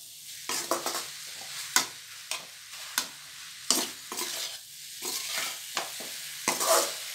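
Metal ladle scraping and knocking irregularly against a metal pan as chopped, boiled goat intestine (boti) is stirred and tossed through masala. Under the strokes, a steady sizzle of frying.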